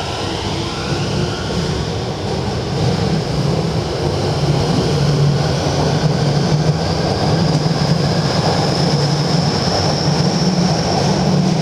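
Tobu 50070-series electric train pulling out of the station: its cars rumbling past on the rails, with the traction motors' whine slowly rising in pitch as it gathers speed.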